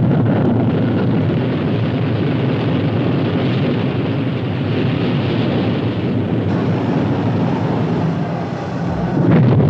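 Rocket engine at liftoff: a loud, steady, rushing rumble with no clear pitch, swelling a little near the end.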